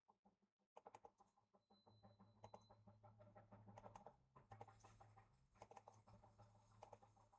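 Faint computer keyboard typing and mouse clicks in quick, irregular strokes, over a low steady hum.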